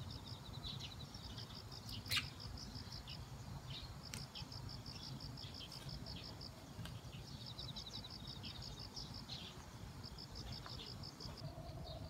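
Faint insects chirping in short, high-pitched pulsed trills that repeat with brief gaps, over a low steady background rumble. A single sharp chirp stands out about two seconds in.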